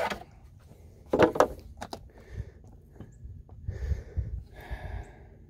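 Chainsaw bar and chain being handled on the bar studs of a Stihl saw: a loud metal clank about a second in, a smaller click just after, then lighter rubbing and clinks.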